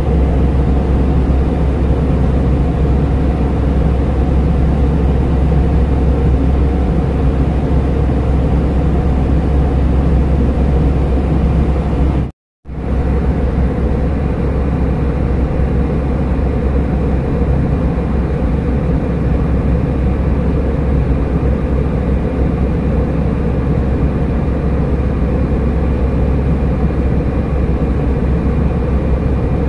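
Steady low drone of an airliner cabin in cruising flight. The sound cuts out completely for a moment about twelve seconds in.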